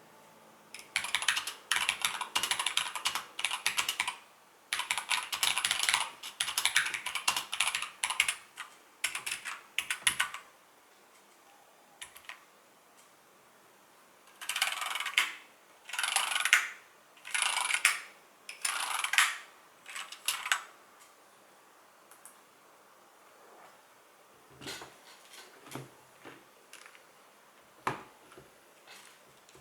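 Typing on a mechanical keyboard: two fast runs of keystrokes, then five short bursts about a second apart, then a few fainter, scattered key presses near the end.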